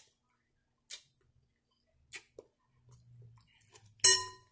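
Eating a crunchy salad: a few sharp, isolated crunches or clicks about a second apart, then a louder, briefly ringing click near the end.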